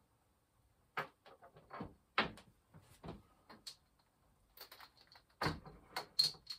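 Objects being handled on a workbench: a series of irregular knocks and clinks, coming thicker near the end, some leaving a short high ring.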